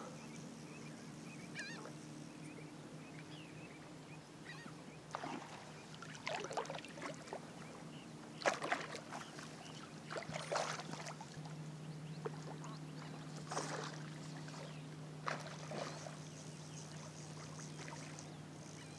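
Soft splashing from hooked redfish thrashing in shallow water, a handful of short splashes spread over the middle of the stretch, over a faint steady low hum.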